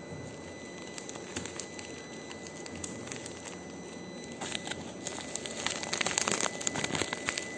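Plastic packaging crinkling and crackling as a phone case's plastic pouch is handled and pulled at, with scattered crackles at first, then a denser, louder run of crinkling in the second half.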